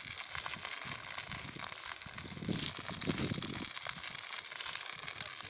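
Dry grass burning: a dense, irregular crackling and hiss of the flames, with a louder low rushing surge about halfway through.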